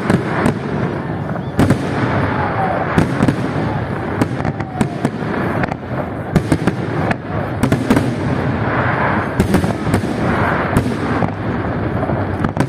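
Fireworks display: a steady dense crackling and rumble broken by loud shell bangs at irregular intervals, often a second or two apart.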